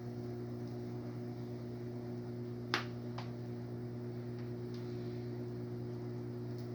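A wood fire in a fireplace crackling, with a few sharp pops; the loudest comes about three seconds in. Under it runs a steady low electrical hum.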